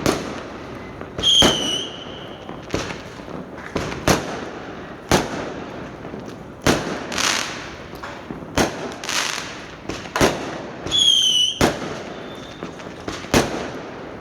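Fireworks going off: a dozen or so sharp bangs at irregular intervals of about a second, some trailing off in a rumble. A short high whistle sounds twice, about a second in and again near the end.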